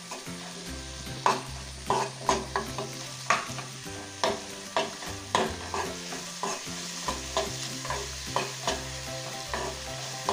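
Sliced onions frying in hot butter and coconut oil, sizzling steadily while a metal ladle stirs them, knocking and scraping against the pan again and again. The onions are being fried until golden brown.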